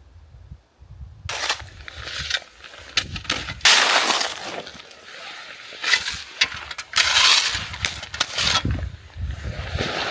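Firm, frozen snow crunching and scraping in irregular bursts, starting about a second in. The snow has set hard enough to give a brittle crunch.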